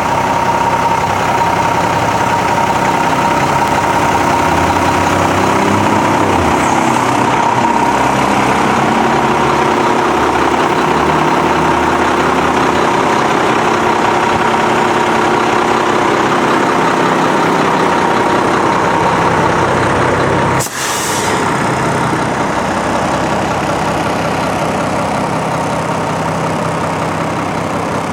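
Septic pumping truck running steadily, its engine droning under a constant high whine, with a brief drop in the sound about three-quarters of the way through.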